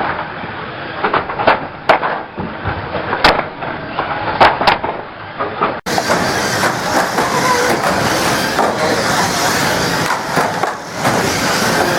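Banger racing cars running in a race, with several sharp bangs of cars hitting each other in the first half. From about six seconds in there is a steady, loud din of many engines and tyres.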